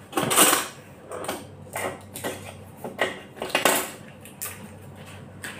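Irregular clinks and rustles of kitchenware being handled on a counter, with the loudest clatter about half a second in.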